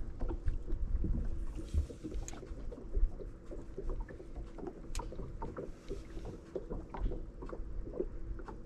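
Bass boat sitting on the water: a low rumble with scattered knocks and clicks over a faint steady hum.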